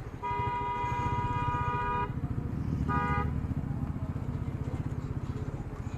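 A vehicle horn sounds twice, one long honk of about two seconds and then a short one. Beneath it the single-cylinder engine of a Royal Enfield Meteor 350 runs steadily at riding speed.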